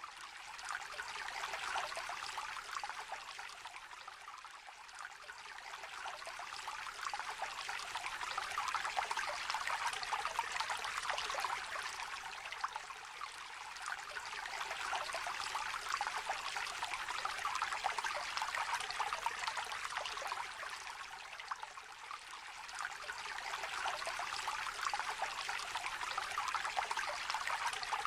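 Small shallow stream trickling and babbling over stones, a continuous bright splashing that swells and eases every few seconds.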